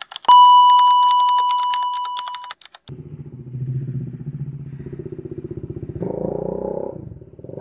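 A loud, steady electronic beep with fast ticking over it for about two and a half seconds, then the Bajaj Dominar 400's single-cylinder engine running at low revs, getting louder about six seconds in as the motorcycle rides off.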